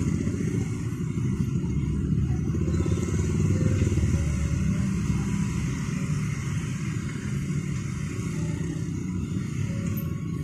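Mixed road traffic moving off across the level crossing: many motorcycle engines running and pulling away, together with the heavier engines of a truck and cars, in a steady rumble.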